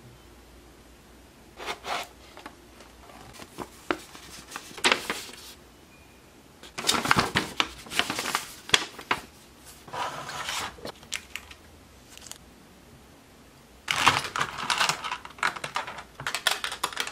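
Unboxing handling noise: paper instruction leaflets rustling and a clear plastic clamshell tray clicking and crinkling as it is opened. It comes in several bursts of a second or two, with short quiet pauses between them.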